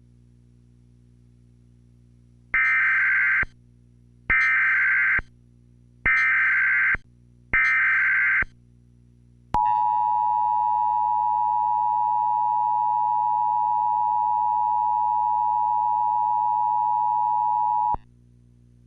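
Emergency Alert System tones: four short warbling bursts of SAME header data, then the two-tone EAS attention signal held steady for about eight seconds. A faint low hum runs underneath.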